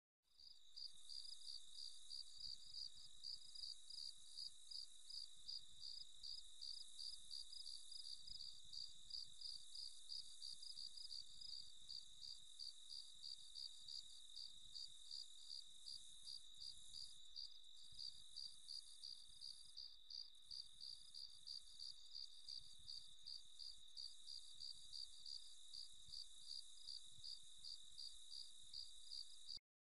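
Crickets chirping in a steady, even rhythm of about two to three high chirps a second. The sound starts just after the beginning and cuts off suddenly shortly before the end.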